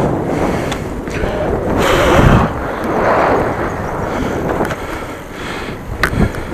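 Wind buffeting the microphone with road noise while riding a bicycle, swelling louder about two seconds in, with a short sharp click near the end.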